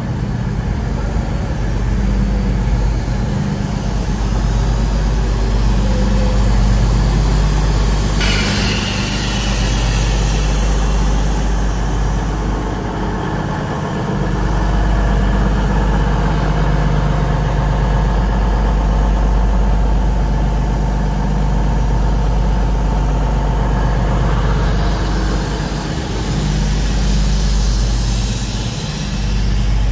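Diesel train engines running steadily at idle, with a low, even hum. About eight seconds in a sudden hiss of air starts and fades over a few seconds, and more hiss swells near the end.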